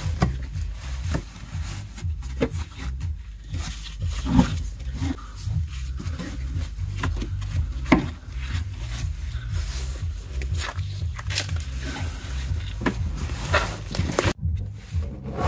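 Plastic front wheel-arch liner being pried and flexed back by hand: scattered clicks, knocks and scraping of plastic, over a steady low rumble.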